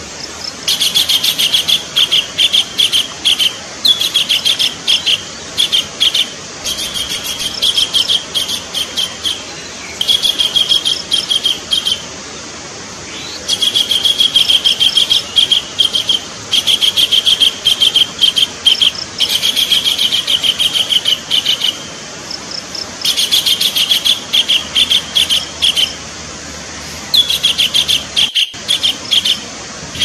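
Collared kingfisher calling: runs of rapid, repeated chattering notes, each run lasting a second or two, separated by short pauses.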